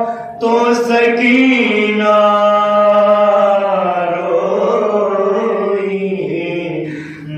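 A group of men chanting an unaccompanied Urdu Muharram mourning elegy, the lead voice joined by the others in long, drawn-out held notes. The line breaks briefly for a breath just after the start and tapers off near the end.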